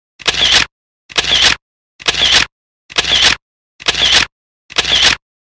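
Camera shutter sound, repeated about once a second: six identical shutter clicks with dead silence between them, as in a photo sound effect.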